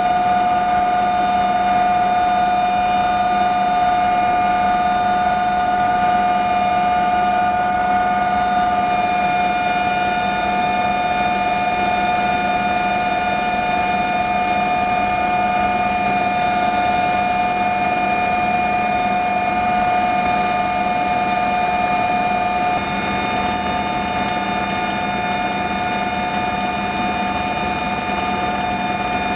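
Aircraft engines droning steadily in flight, heard from inside the cabin: several steady whining tones over an even rush of noise, easing slightly in level about two-thirds of the way through.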